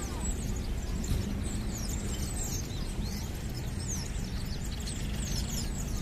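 A crowd of birds chirping and calling at once: many quick, high, slurred chirps overlapping without pause, over a steady low rumble of town traffic.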